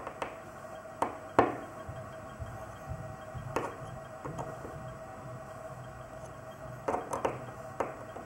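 Small sharp clicks and taps from a precision screwdriver working the screws of a steel watch caseback as it is screwed down: two louder knocks about a second in, scattered taps, then a quick cluster of clicks near the end.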